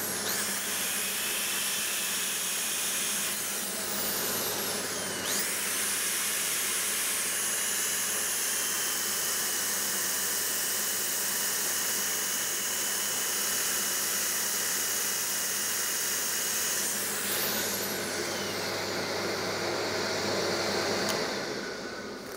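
Angle drill with a 180-grit sanding disc running and sanding a wooden workpiece as it spins on a lathe, over the rush of the dust extraction. The drill's whine shifts in pitch a few times; about a second before the end a steady hum stops and the sound dies away.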